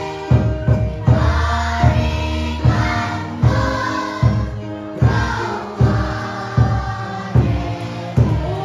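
A group of children and adults singing a hymn together in unison, with accompaniment keeping a steady low beat about every 0.8 seconds.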